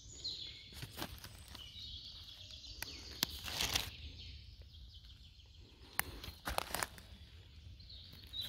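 Rustling and crunching in dry forest leaf litter, with a few sharp clicks and a louder rustle a few seconds in, while small birds chirp in the background.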